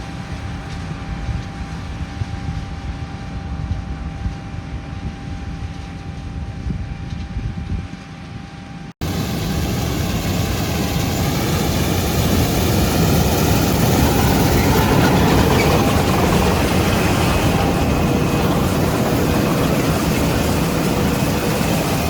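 John Deere S760 combine running as it harvests soybeans: a steady machine drone with a constant hum. About nine seconds in, it cuts abruptly to a louder, fuller run of the machine, which swells slightly before levelling off.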